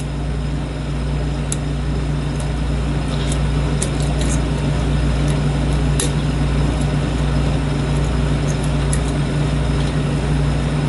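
Steady low hum and hiss, with scattered faint, light metallic ticks from a lock pick probing the pins inside a lock cylinder.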